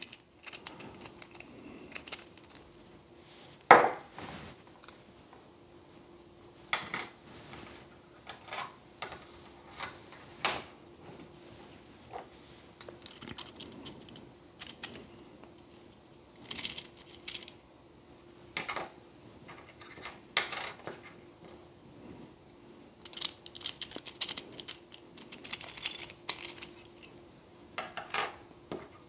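Steel tweezers clicking against the brass discs and washers of a Rosengrens 32A81S disc-detainer lock as the lock is gutted, with the parts tapped down on a wooden tabletop. The light metallic clinks and taps come scattered, with a busier run of them about three quarters of the way through.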